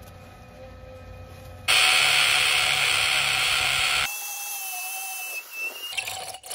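Corded power drill boring into a cured concrete pier: a loud, even grinding hiss for about two seconds, then a quieter steady high whine.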